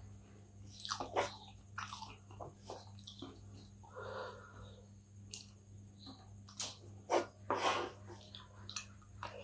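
Close-miked chewing of a mouthful of kottu, with irregular sharp clicks and crackles as a plastic spoon scrapes and scoops through the kottu on its wrapping, a few louder ones after about seven seconds. A faint steady low hum lies underneath.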